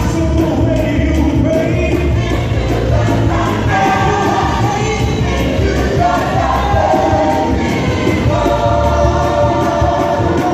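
Youth choir singing a gospel song in unison and harmony, with instrumental accompaniment and a steady bass beat.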